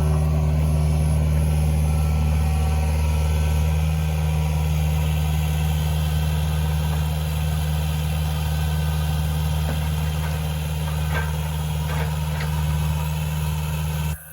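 An engine running steadily at an even speed, with a few faint knocks near the end.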